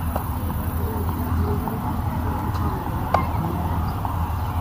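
Steady low rumble of outdoor background noise with faint distant voices, and one sharp click about three seconds in.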